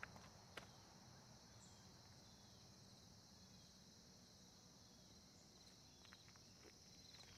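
Faint, steady chirring of crickets, with a couple of soft clicks near the start.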